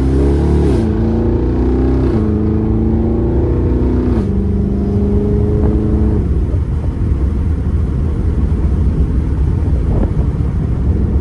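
Car engine and exhaust pulling under acceleration through the gears, the note dropping in pitch at each upshift, about a second in, two seconds in and four seconds in. About six seconds in the engine note falls away, leaving steady road and wind noise.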